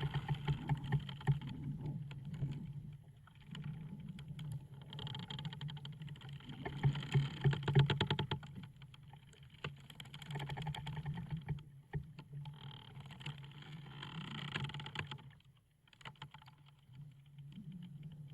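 Wooden ship's timbers creaking in long, drawn-out creaks that come in several swells of a few seconds each, with short lulls between them.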